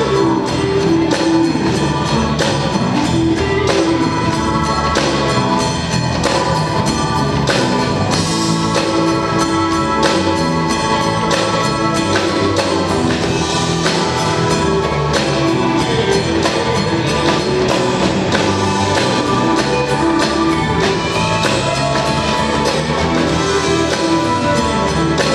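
A live band playing on stage, with drums, keyboard and guitar, in a steady beat that runs without a break.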